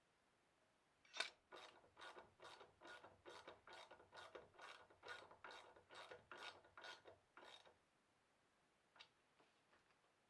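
A hand tool worked against wood in a quiet, even rhythm: about sixteen strokes, two or so a second, starting about a second in and stopping near the end, followed by a few faint ticks.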